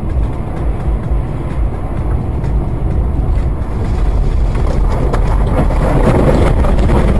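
Car's driving noise heard from inside the cabin: a steady low rumble of tyres and engine on a snowy road. It grows louder and rougher, with a few knocks, from about four seconds in as the car runs off the road onto snowy ground.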